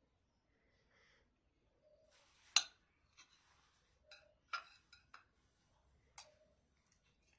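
Cutlery clinking and scraping on a plate while eating: a few sharp clicks, the loudest about two and a half seconds in, some with a short ring, and soft scraping between.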